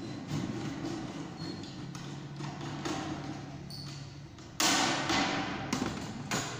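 Aviation snips cutting a round hole in sheet-metal gutter: a run of irregular crunching snips, then a louder rasping metal noise lasting about a second, starting about four and a half seconds in.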